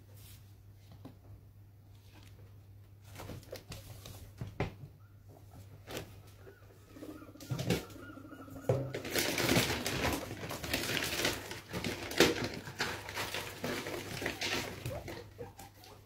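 Guinea pigs moving about their cage: irregular rustling and clicks on the bedding and cardboard, starting about halfway through, over a faint steady low hum.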